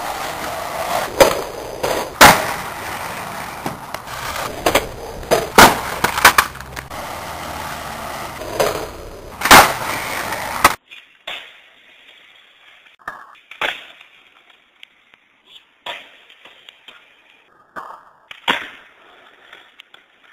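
Skateboard wheels rolling on concrete, broken by several sharp, loud board pops and landing slaps. About ten seconds in it cuts to a thinner, quieter recording of scattered board pops and clacks on concrete.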